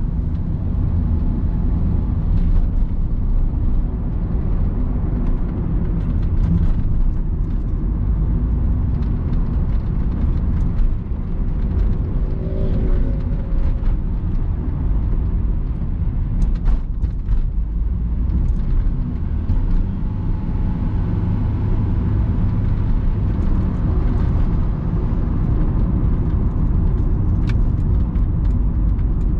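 Cabin sound of a 2001 Honda Capa with its 1.5-litre automatic, on the move: a steady engine drone with low road and tyre rumble heard inside the car.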